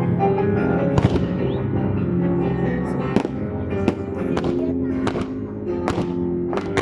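Fireworks bursting: a string of sharp bangs at uneven intervals over music playing along with the display.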